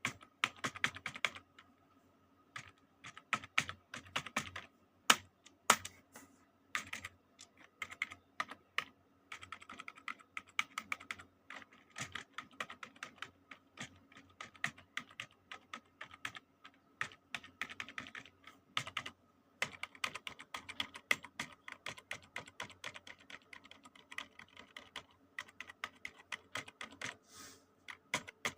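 Typing on a computer keyboard: quick, irregular runs of key clicks, broken by a couple of short pauses.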